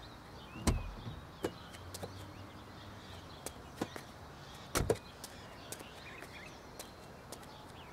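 Quiet street-side ambience with scattered light clicks and two duller knocks, one about a second in and one near the middle.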